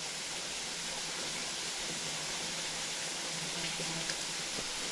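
Steady rush of flowing creek water, an even hiss without breaks.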